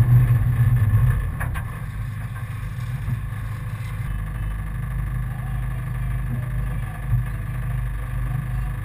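Four-cylinder enduro race car engine heard from inside the car. It eases off over the first second, then idles steadily at a low, even level while the car sits nearly at a standstill.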